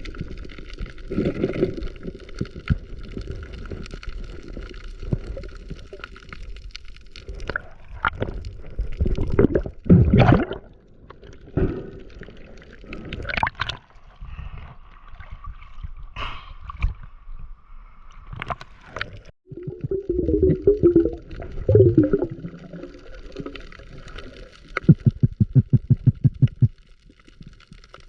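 Water gurgling and sloshing close to the microphone in irregular surges, with a rapid burst of bubbling pulses, about ten a second, near the end.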